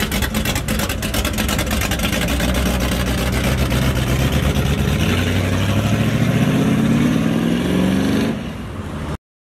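A classic 1956 Chevrolet sedan driving past in traffic, its engine accelerating with a steadily rising pitch over the last few seconds. The sound then eases off and cuts off suddenly.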